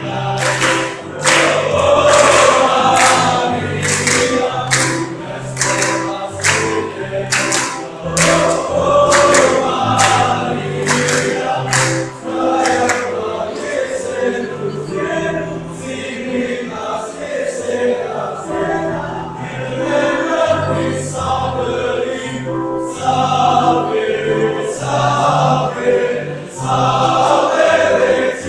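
Young men's choir singing a hymn in parts, with sustained low bass notes. Through roughly the first half, a sharp beat of strikes comes about twice a second.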